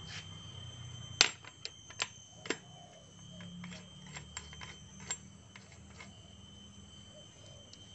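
Sharp metallic clicks and taps of small engine parts being handled and fitted onto a motorcycle engine's kick-starter shaft. The loudest click comes about a second in, and lighter ones follow at irregular intervals.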